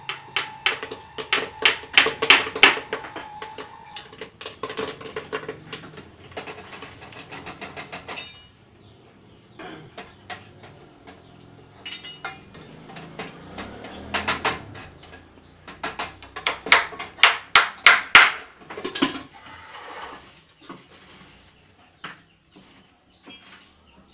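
Quick, sharp knocking and clattering in two spells, the first lasting several seconds and the second starting about halfway through, with a quieter stretch between. A steady tone sounds under the first few seconds and stops about four seconds in.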